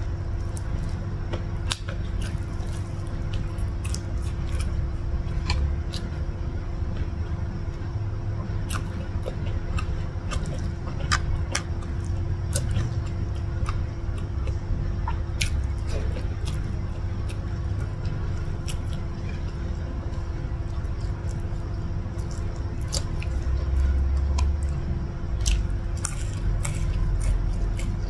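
Close-miked chewing and mouth sounds of a person eating nasi lemak with fried chicken by hand, with many scattered short crunches and clicks.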